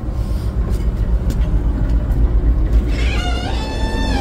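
Diesel-electric locomotive's engine running, heard inside the unit as a steady low rumble. About three seconds in, a high squealing tone that rises and then holds joins it.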